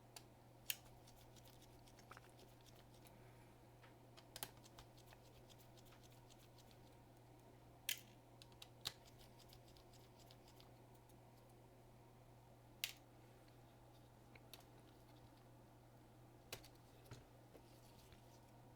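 Scattered sharp clicks and light taps of a screwdriver and small screws as the logic board of a 13-inch MacBook Air is unscrewed, with a faint steady hum underneath.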